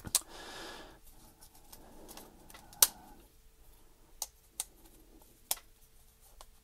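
Flexible screwdriver extension being pushed and fiddled at its slot in a precision screwdriver set's bit case, not going in: a short rustle in the first second, then a few sharp clicks, the loudest about three seconds in.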